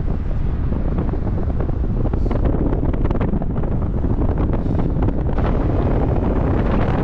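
Wind rushing over the microphone of a paraglider in flight: a deep, steady rush with gusty buffeting that grows stronger about five seconds in.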